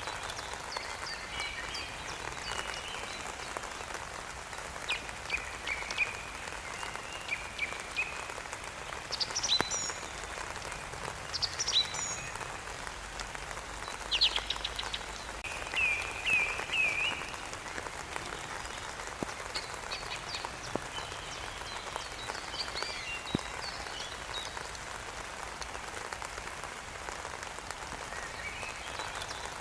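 Steady rain falling, with songbirds singing short chirping phrases over it, the song busiest and loudest in the middle stretch.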